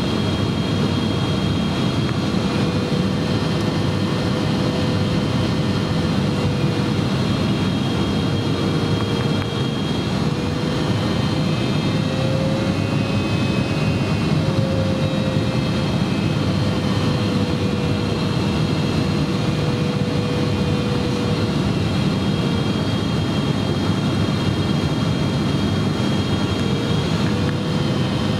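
Steady engine and airflow roar of a Boeing 777-300ER's GE90 turbofans, heard from inside the cabin during the approach. A humming tone in the roar drifts slightly up and down in pitch.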